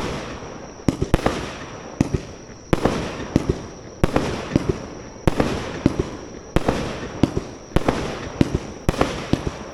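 Aerial fireworks shells bursting one after another, about two or three sharp bangs a second, each trailing off in a rumbling echo.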